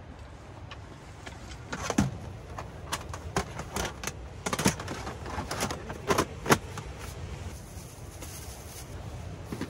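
Hard plastic clicking and knocking, with a bin bag being handled, as a collapsible plastic trash bin is opened out and lined. A rapid series of sharp clicks starts about two seconds in.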